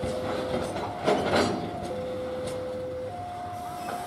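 Freight train of fuel tank wagons rolling along the rails, with one loud clank or screech of wheel and metal about a second in. Over it, a two-tone electronic warning signal alternates between a low and a higher note, switching about every second.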